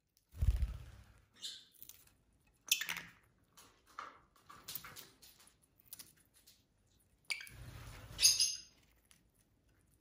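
A masked lovebird nibbling and tugging at fresh grass blades held out by hand. The sound comes as rustling, crunching bouts, loudest about half a second in and again near 8 seconds, with a few short high chirps among them.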